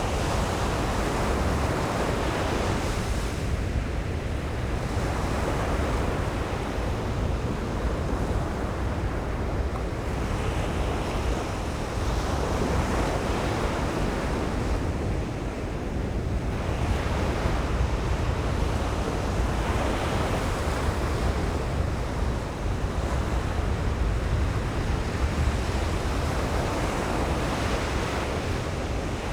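Atlantic surf breaking on a sandy beach, the wash swelling and easing every five or six seconds, with wind rumbling on the microphone.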